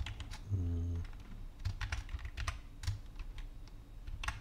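Typing on a computer keyboard: irregular keystroke clicks, with a brief low hum about half a second in.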